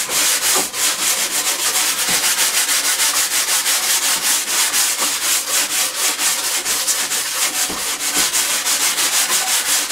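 A wax brush scrubbed rapidly back and forth along the waxed plastic ski of a GT snow racer sled, several strokes a second in a steady rhythm. This is the final brushing after melting on wax and scraping off the surplus.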